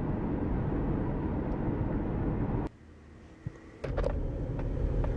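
Steady rumble and road noise inside a moving car. It drops away suddenly about two and a half seconds in and returns about a second later, with a few sharp clicks.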